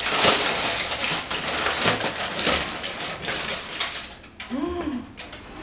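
Aluminium foil being crinkled and pulled off a metal pot by gloved hands: a dense crackling rustle that fades after about four seconds.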